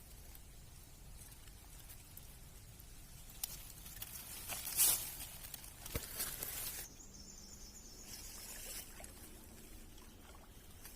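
Rustling and crackling from handling, loudest a little before the middle with one sharp rushing scrape, over a low steady outdoor background.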